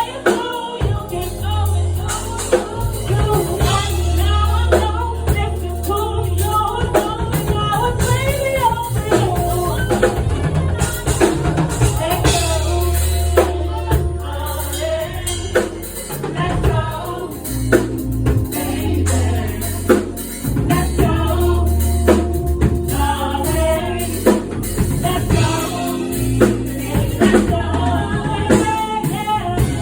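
Song with a singer over a band: drum kit hits and a deep bass line that drops in and out.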